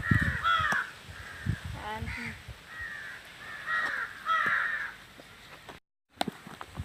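Crows cawing, several short harsh calls one after another, over some low thuds. The sound cuts out completely for a moment near the end.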